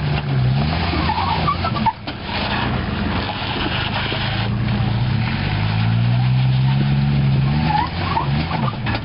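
A 1997 Jeep Grand Cherokee ZJ's engine working under load as the Jeep crawls up a steep slickrock ledge. The engine dips in pitch early, then revs up steadily from about halfway through before easing off near the end.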